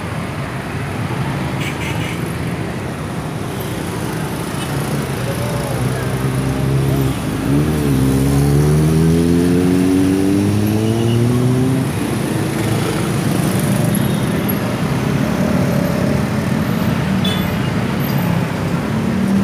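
Street traffic noise with a motor vehicle's engine accelerating past: its pitch climbs, drops once at a gear change about halfway through, climbs again and then fades.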